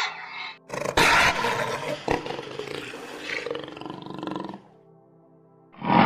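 A big cat roaring: a loud, rough roar begins about a second in and fades over some four seconds. Another loud burst starts near the end.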